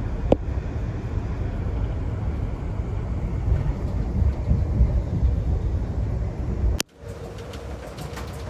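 Low, steady rumble of the Amtrak California Zephyr rolling along, heard from inside a passenger car. About seven seconds in, the sound cuts abruptly to a quieter steady hum with a faint held tone and a few light clicks.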